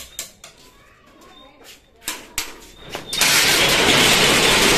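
Metal rolling shop shutter being pulled down: a few knocks, then about three seconds in a loud, continuous rattling of the metal slats begins.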